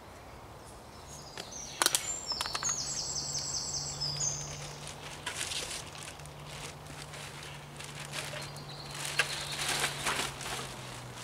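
Rustling and footsteps on dry leaf litter as camp gear is handled and packed away, with a sharp knock about two seconds in. A bird sings briefly around the third and fourth seconds, over a steady low hum.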